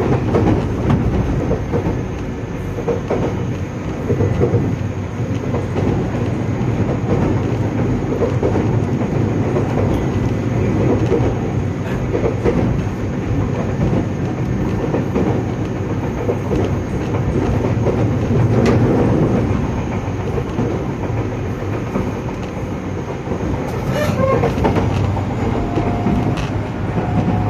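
Running noise of a JR Kyushu 815 series electric multiple unit motor car, heard from inside the car: a steady rumble with uneven swells as the train travels on the rails. Among it is an abnormal noise from one spot in the car, which is faint in this recording.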